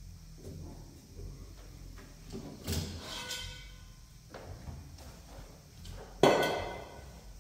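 Metal clanks and rattles from handling a metal-cutting bandsaw's vise and fittings: light knocks, then two ringing metallic clanks, the louder one near the end.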